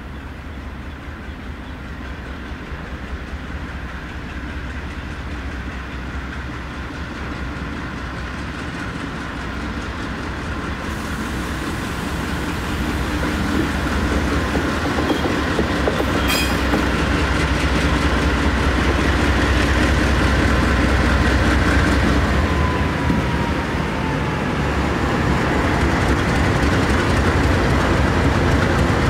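Norfolk Southern freight train approaching and passing, its diesel locomotives rumbling and growing steadily louder, with wheels clicking over the rail joints. A brief high squeak comes about halfway through.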